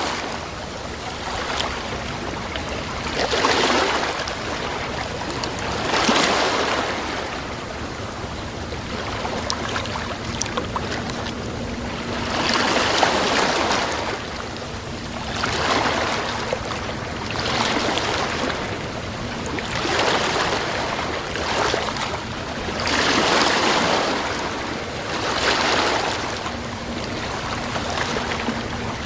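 Sea waves washing in on the shore, the surf surging again every few seconds.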